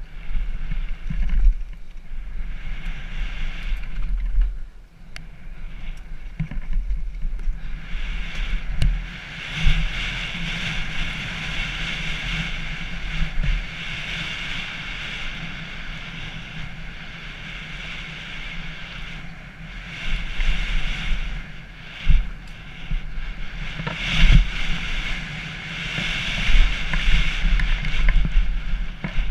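Wind buffeting a helmet-mounted camera on a fast downhill mountain-bike run, with tyres hissing over dirt and gravel and the bike knocking and rattling over bumps. The tyre hiss grows louder for long stretches in the middle and again near the end, with a few sharp knocks.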